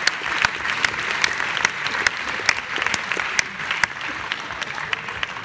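A large theatre audience applauding, a dense mass of claps that begins to thin out and fade near the end.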